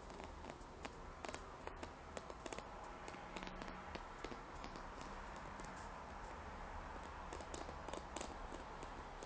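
Fingernails tapping and scratching on a rough, felt-like fabric cushion, making irregular quick clicks and scrapes over a faint steady hum.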